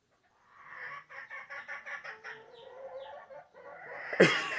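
Chicken clucking in a quick run of short calls. A sudden loud cry with falling pitch follows near the end.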